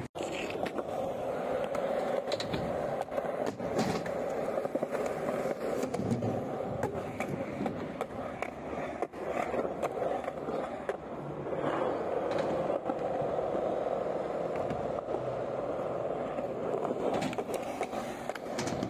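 Skateboard wheels rolling over concrete, a steady rolling noise broken by scattered clicks and knocks as the wheels cross cracks and seams.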